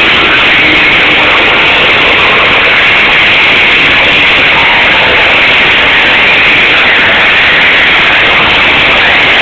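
Arena crowd cheering, a steady dense roar at near full-scale level with no let-up, recorded on a camcorder microphone.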